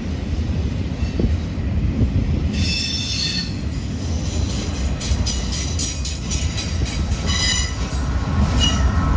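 Freight train of autorack cars rolling past on a curve: a steady low rumble of wheels on rail, with high-pitched wheel squeal that starts about two and a half seconds in and comes and goes.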